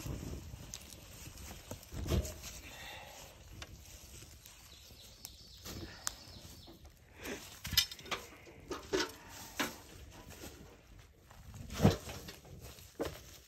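Newspaper burning in a galvanized metal tub around a red-hot raku pot, with scattered crackles and knocks. Near the end a metal lid clanks down on the tub, covering the pot for post-firing reduction.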